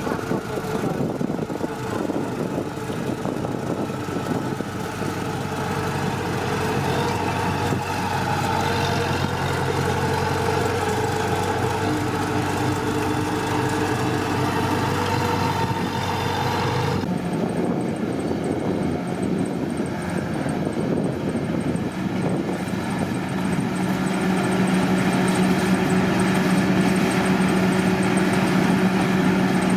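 Combine harvester engine running steadily as it harvests rice. About halfway through the sound changes abruptly to a different steady engine tone.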